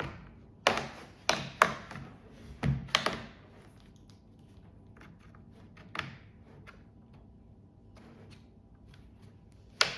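Plastic snap clips of a Lenovo T14 laptop's bottom cover clicking loose as a plastic pick is run along the seam: a handful of sharp, irregular clicks, most of them in the first three seconds, one about six seconds in and one near the end.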